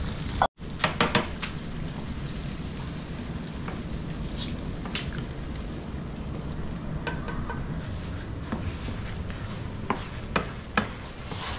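Scrambled eggs sizzling in butter in a frying pan as they are stirred, with a steady frying hiss. The utensil taps sharply against the pan several times in the first second or so and again near the end.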